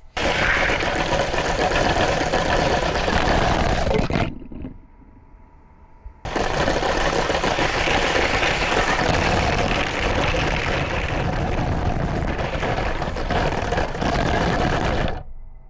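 Lego train's motor and wheels rumbling along plastic track, heard close up from a camera riding on the train. The rumble drops out for about two seconds a little after four seconds in, then comes back and runs on until just before the end.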